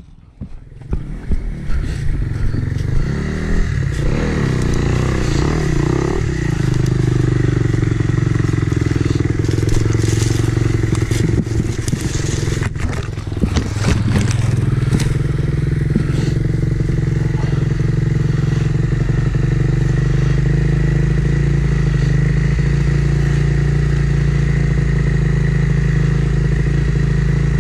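Dirt bike engine running, its revs rising and falling over the first several seconds and then settling into a steady idle. Scattered clattering knocks come in the middle.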